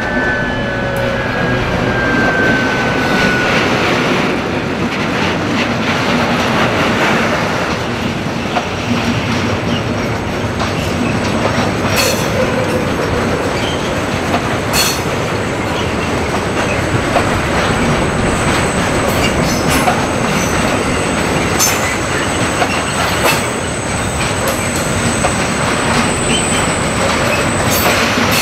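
Loaded tank wagons of a freight train rolling past close by, a steady rumble of wheels on rail with occasional sharp knocks over rail joints. At the start, a falling whine from the passing Ludmilla diesel locomotive fades out over the first few seconds. In the second half a thin, high wheel squeal runs on steadily.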